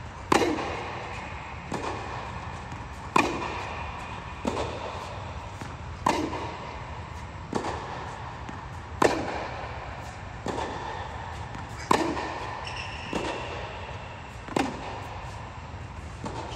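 Tennis ball struck by rackets in a baseline rally, a hit about every second and a half, alternating louder and softer, each crack echoing briefly off the walls of an indoor tennis dome.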